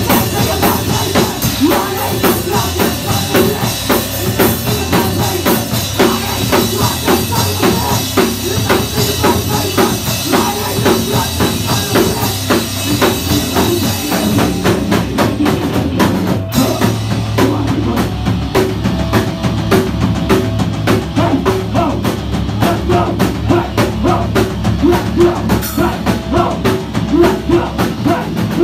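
Live skate-punk band playing loud and fast, a drum kit pounding out a quick beat under the band. About halfway through, the hissing top end drops away as the song moves into a new part.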